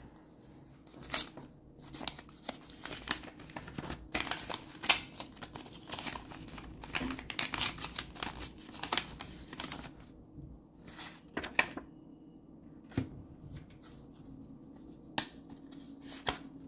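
Packaging being torn open and crinkled, with trading cards being handled and shuffled: dense rustling and snapping for about ten seconds, then a few separate clicks and rustles.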